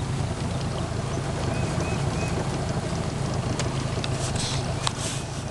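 Small boat motor running steadily, a low even drone.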